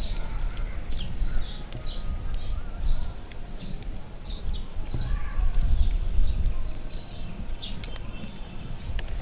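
Small birds chirping in quick repeated calls over a steady low rumble, with scattered sharp clicks.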